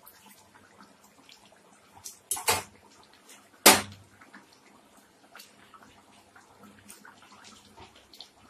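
Cooking utensil working in a pan of frying chicken: scattered small clicks and scrapes, with two sharp knocks about two and a half seconds in and a louder single knock near four seconds.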